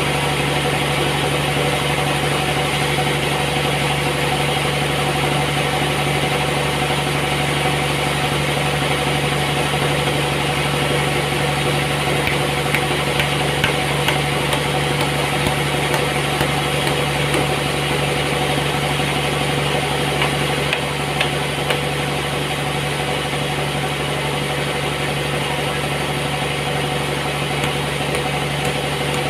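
Sawmill machinery running steadily, a constant engine-like hum, with a few faint clicks and knocks around the middle.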